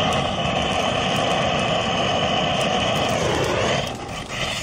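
Butane torch on a gas canister blasting flame into split-wood kindling in a camp wood stove, a loud steady rushing hiss. It dips for about half a second near the end, then comes back.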